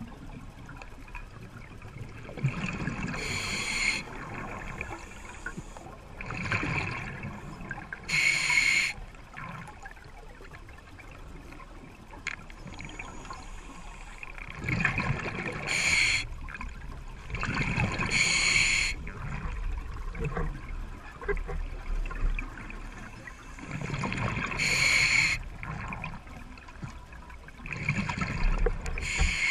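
Open-circuit scuba regulator breathing underwater: a hissing inhalation through the second stage alternating with the low gurgle of exhaled bubbles, a breath every few seconds.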